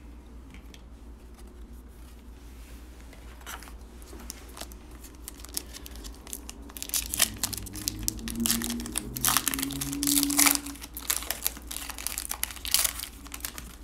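Foil wrapper of a basketball trading-card pack being torn open and crinkled by hand, in quick irregular crackles. They start a few seconds in and are densest and loudest in the second half.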